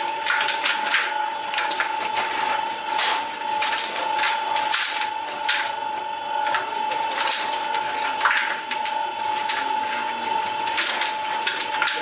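A steady high-pitched machine hum with irregular knocks and clatter of work over it.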